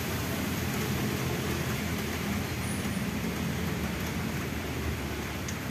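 Steady hiss of falling rain with a low rumble underneath.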